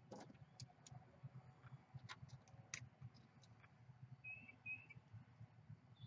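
Near silence, with faint clicks of multimeter test leads and wire terminals being handled, and two short high chirps about four seconds in.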